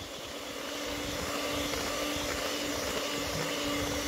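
Electric hand mixer running at a steady speed, its beaters whipping margarine, sugar, oil and eggs into a creamy batter; a constant motor hum at one pitch.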